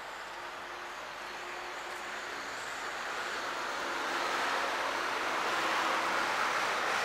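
A car passing on the road, its tyre and engine noise swelling as it comes closer, loudest about five to six seconds in.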